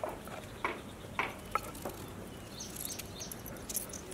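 Small kitchen knife cutting carrot on a wooden chopping board: a few scattered light clicks and taps as the blade goes through the carrot and meets the board.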